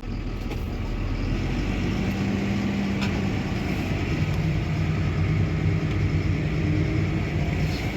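Tractor engine running steadily under way, heard from inside the cab as a low, even drone.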